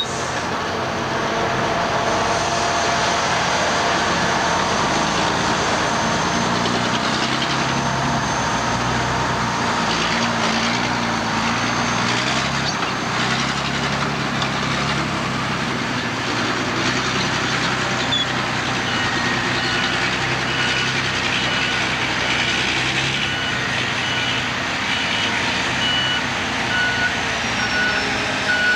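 Diesel engine of an AEC Mercury dump truck running steadily as it drives across the site, its engine note stepping up and down. In the second half, a reversing alarm beeps about once a second.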